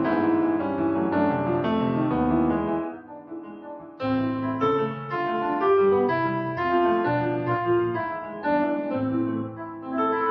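Korg Pa700 arranger keyboard playing a piano-type factory sound, recorded direct from its outputs with no EQ. A chordal passage dies away about three seconds in, and a new phrase of struck notes and chords begins about a second later.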